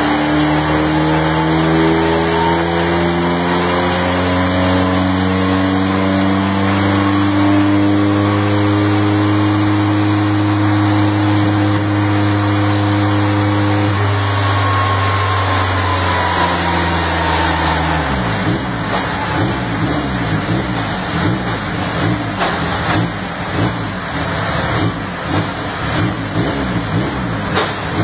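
Car engine on a chassis dynamometer making a full-throttle pull, its pitch rising steadily for about fourteen seconds. The throttle then comes off, and from about eighteen seconds on the engine runs at a lower, uneven, pulsing note.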